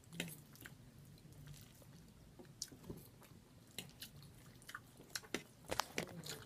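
Quiet close-miked mouth sounds of someone chewing food: wet lip smacks and clicks, scattered at first and more frequent in the last couple of seconds.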